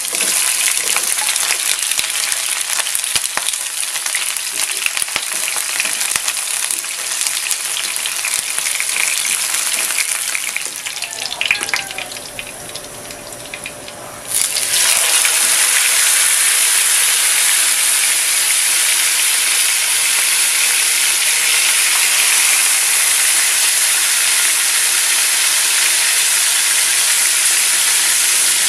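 Food sizzling in hot oil in a frying pan: first onion rings, fading to a softer sizzle, then a sudden loud burst of sizzling about halfway through as pork steaks go into the oil, frying steadily after that.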